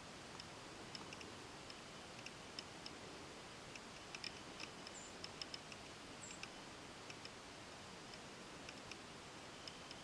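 Faint outdoor hiss with insects chirping in short, irregular ticks, and two brief higher chirps about five and six seconds in.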